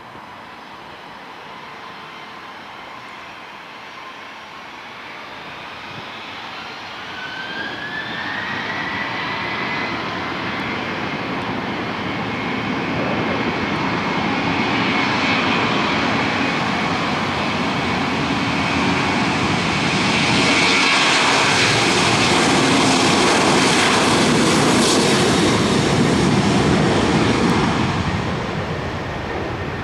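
Jet engines of a Southwest Boeing 737 spooling up for takeoff with a rising whine, then the engine noise building through the takeoff roll, loudest about two-thirds of the way in as the jet passes, and fading near the end.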